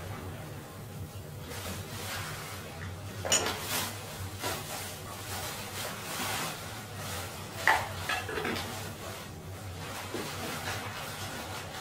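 Metal clinks and clatter from a rice cooker's inner pot and lid as rice is served out, with two sharper knocks, about three and a half and eight seconds in, over a low steady hum.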